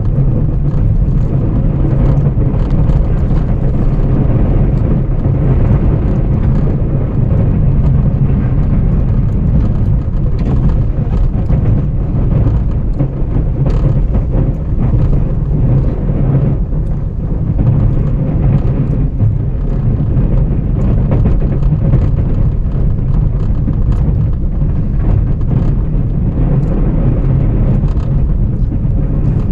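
Ram 1500 Classic pickup truck's engine running steadily, a low, even drone with no marked revving.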